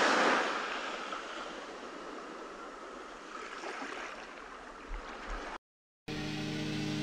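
A rushing, whooshing noise that swells suddenly at the start and slowly fades, cut off abruptly about five and a half seconds in. After a brief silence, music with steady sustained tones begins near the end.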